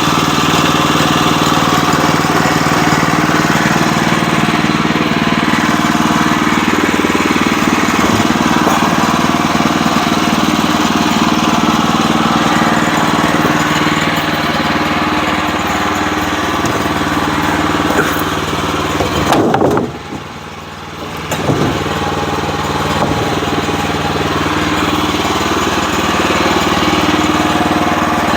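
Portable sawmill's engine running steadily at speed. About two-thirds of the way through, its note falls sharply and the sound drops away for a second or two, then picks back up.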